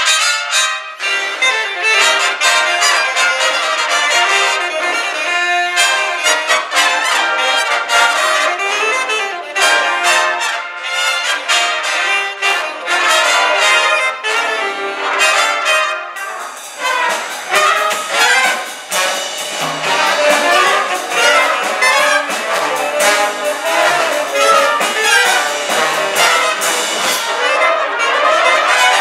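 Big band jazz: full ensemble of trumpets, trombones and saxophones with drums playing a swing chart, with a trumpet out in front and many sharp ensemble and drum accents.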